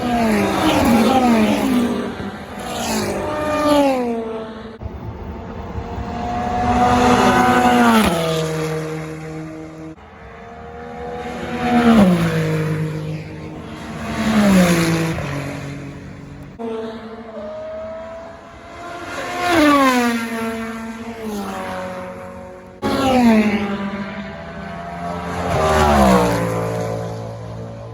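Race cars passing at speed one after another, each engine note sliding down in pitch as the car goes by. The sound changes abruptly several times where separate passes are joined.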